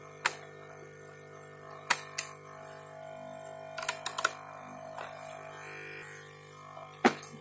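Scattered sharp clicks and knocks from handling hard objects: one just after the start, two close together about two seconds in, a quick cluster around four seconds, and the loudest near the end. Underneath runs a steady drone of background music.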